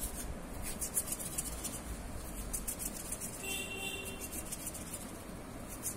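Hands kneading two-part epoxy putty, resin and hardener, together on a talc-dusted steel plate: soft, repeated rubbing and scraping strokes. A brief faint high tone sounds about three and a half seconds in.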